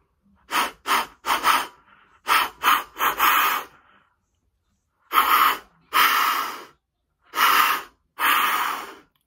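Flextone Headhunter (Extractor) deer call's snort-wheeze chamber blown in imitation of a buck's snort-wheeze: quick runs of short, breathy hissing puffs, each run ending in a longer one, then four longer hissing blasts. It is the dominance challenge of a buck claiming its territory.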